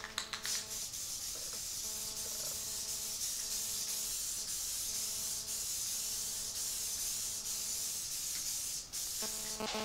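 Aerosol spray-paint can spraying in a long, steady hiss that breaks off briefly near the end.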